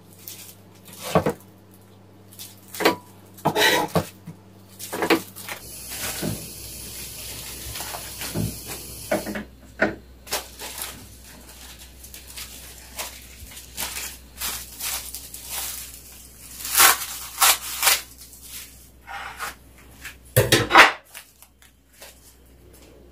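Kitchen clatter: utensils knocking and clinking on dishes and a frying pan, with a few seconds of steady hiss about six seconds in and a heavy knock near the end.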